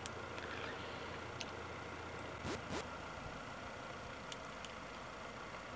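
Toyota Innova Reborn's four-cylinder turbodiesel engine idling, heard faintly from inside the cabin. A brief faint rising sound comes about two and a half seconds in.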